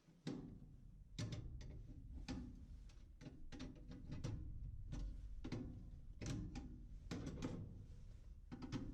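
Irregular knocks and taps on a bent metal furnace part, one every half second to a second, as it is worked to straighten it.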